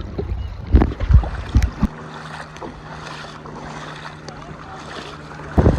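Wind buffeting the microphone, with a few sharp splashy thumps in the first two seconds from wading through ankle-deep seawater. After about two seconds the wind drops to a steady hiss of water with a low steady hum, and the rumble of wind comes back near the end.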